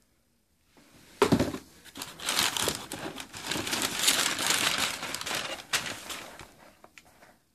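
Tissue paper in a shoebox being handled and crumpled. A sharp rustle about a second in is followed by several seconds of continuous crinkling that fades out near the end.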